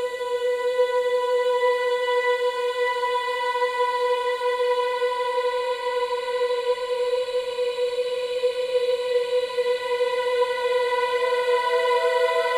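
Music: a drone of long held notes, one low pitch sustained unchanging throughout. A second, slightly higher note drops out at the very start and comes back about eleven seconds in.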